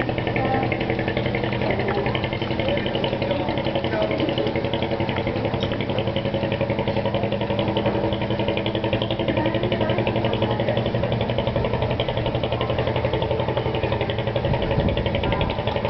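An engine idling steadily at an even pitch, with faint voices.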